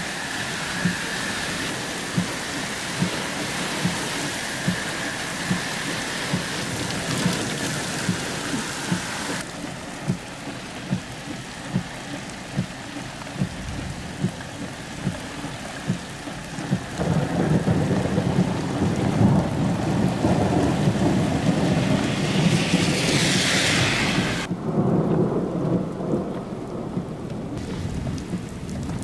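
Heavy thunderstorm squall rain and wind beating on a car, with scattered heavier drops knocking on the body. About two-thirds of the way through it swells louder and fuller for several seconds.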